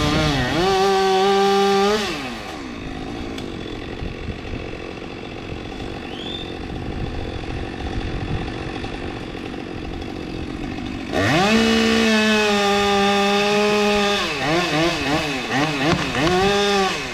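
Two-stroke chainsaw at full throttle, dropping back after about two seconds and running low. About eleven seconds in it is opened up again, with several quick throttle rises and falls near the end.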